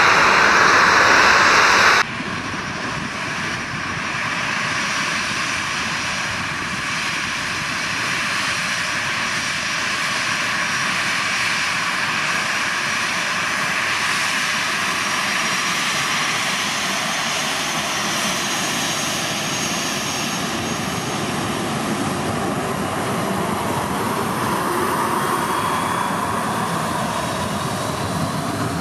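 Boeing 737-800's twin CFM56-7B turbofan engines running at low taxi power as the jet taxis close by: a steady rushing hum with a faint high whine that swells slightly in the second half. A louder rushing noise cuts off abruptly about two seconds in.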